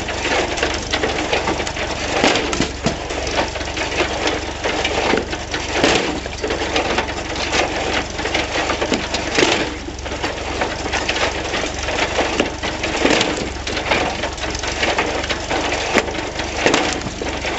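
Allis-Chalmers WD tractor's four-cylinder engine running steadily, driving a John Deere 14T hay baler's plunger through the PTO. Over the hum come repeated sharp cracks and clatter as the baler plunger splits soft pine logs.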